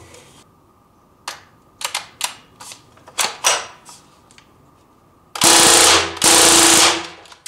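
CO2-powered Thompson M1A1 replica air gun firing on full auto: a few short, separate pops, then two loud bursts of about a second each, back to back near the end.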